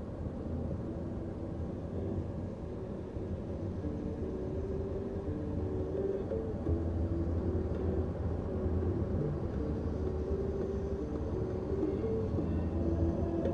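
Steady low rumble of a moving vehicle heard from inside the cabin, with faint held tones that change pitch every second or so.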